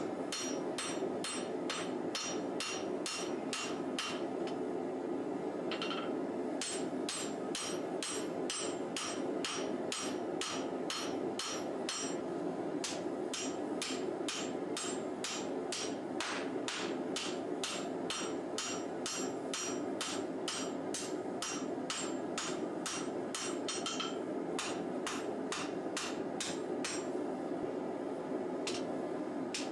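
Hand hammer striking a hot W1 steel bar on an anvil, forging it out, in a steady run of about two to three blows a second with a short pause a few seconds in and another about three quarters of the way through. A steady rushing noise runs underneath.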